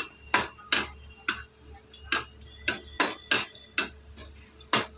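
Steel perforated skimmer spoon clicking and tapping against a frying pan while stirring cashews frying in oil, in about nine sharp, irregular knocks.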